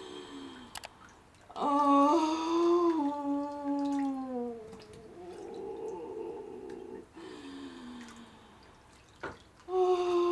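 A woman in transition labour moaning through a contraction: long, low moans that fall in pitch, with a breathy stretch between them. There are two long moans and a short one.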